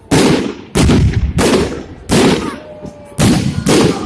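Fireworks shells bursting in quick succession: six loud bangs in about four seconds, each trailing off in a rumbling echo.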